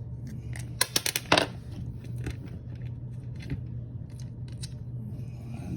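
Small metal clicks and clinks of a bolt and nut being handled and unthreaded by hand on an RC truck's chassis: a quick run of sharp clicks about a second in, then scattered fainter ticks. A steady low hum sits underneath.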